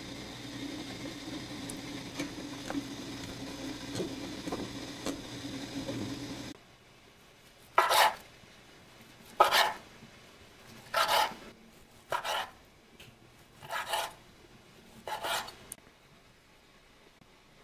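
A steady hum with faint clicks that stops suddenly, then six rasping scrapes of a utensil against cookware, about one every second and a half, as the sticky rice is stirred or scooped.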